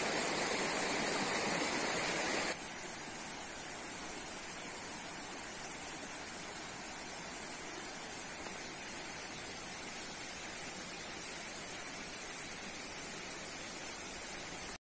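Steady outdoor background noise: an even hiss with a constant high-pitched band on top. It steps down in level about two and a half seconds in, rises slightly about eight seconds in, and cuts out briefly at the very end.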